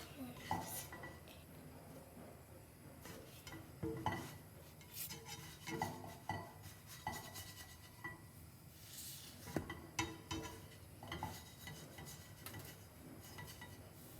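Pans and cutlery being handled in the kitchen: scattered light knocks and clinks, some of them ringing briefly.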